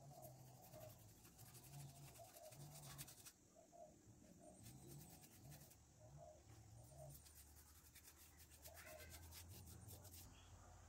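Faint, scratchy strokes of a paintbrush rubbing black paint onto the rough surface of a cast cement pot, pausing briefly partway through.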